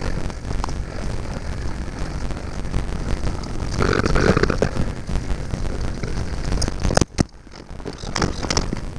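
Mountain-bike riding noise on a GoPro Hero5 Black's built-in microphone: a steady rumble and hiss of wind buffeting and tyres rolling over the trail. The noise swells about four seconds in. Just after seven seconds a click is followed by the sound dropping out sharply for under a second, in a recording whose audio the owner reports as faulty.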